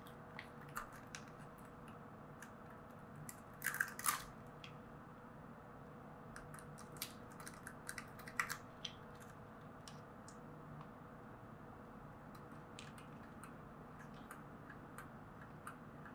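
Hands handling small plastic RC car parts and wiring: scattered light clicks and crackles, loudest in a quick cluster about four seconds in and again around seven to eight and a half seconds, over a faint steady hum.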